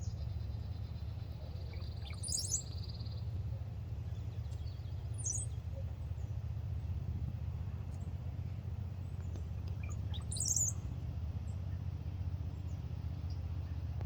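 Birds calling: a rapid high trill for the first three seconds, and sharp rising calls about two and a half, five and ten seconds in, over a steady low rumble.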